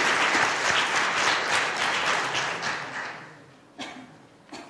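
Audience applauding, dying away about three seconds in, followed by two short thumps near the end.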